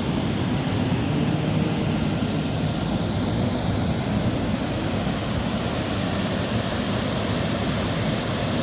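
Waterfall: a steady, deep rush of falling water.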